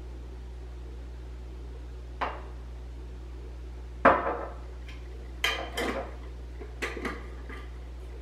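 A metal spoon clinking against a jar and the blender container as cacao powder is spooned in, with a jar set down on the stone countertop. It is a scattered run of about seven sharp clinks and knocks, the loudest about halfway through.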